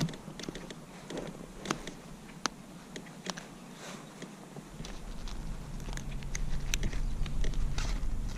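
Scattered light clicks and taps of handling on a fishing kayak, with a low rumble of wind on the microphone coming in about five seconds in.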